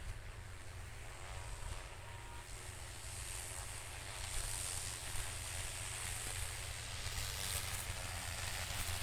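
Agricultural spray drone's rotors whirring steadily, growing a little louder about four seconds in, with wind rumbling on the microphone.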